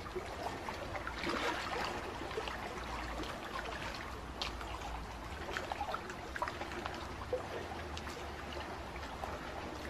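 Water trickling and lapping, with many small irregular drips and splashes over a low steady rumble.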